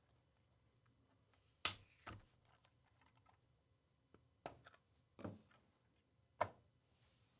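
About five soft, sharp clicks and taps from trading cards and a hard plastic card holder being handled, the loudest about a second and a half in.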